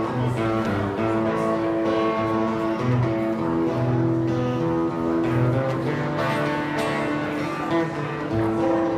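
Acoustic guitar strummed through an instrumental break between sung verses, its chords changing every second or so.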